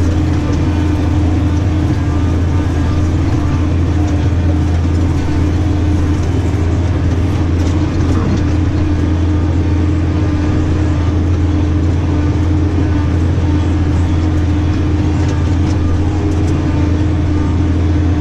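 New Holland tractor's diesel engine running at a steady working speed, heard from inside the cab, while it works a field with a mounted fertiliser spreader. It is a constant low drone with a steady higher hum over it and no change in engine speed.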